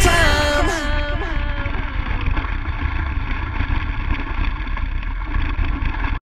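Music winding down with its notes sliding down in pitch over the first second. It gives way to a steady rushing rumble of wind buffeting a helmet-mounted camera's microphone, which cuts off suddenly near the end.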